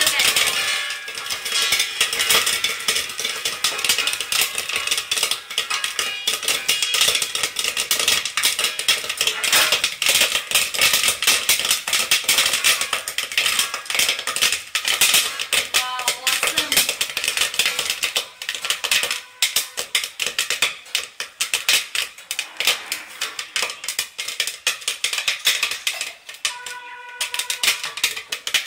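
Popcorn kernels popping in a hot oiled wok covered with a steel plate: a dense crackle of pops and rattles that thins out over the last ten seconds or so as the popping slows toward done.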